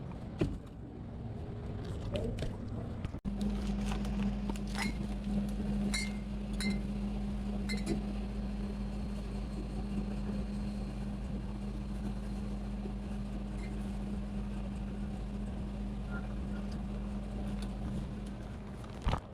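Glass bottles clinking several times during fridge restocking, over a steady low hum that starts abruptly about three seconds in.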